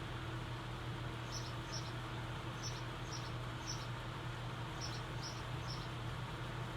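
1980s Lasko ceiling fan running steadily on its fast setting, a low motor hum under an even whoosh of air. Faint short high chirps come now and then at uneven intervals.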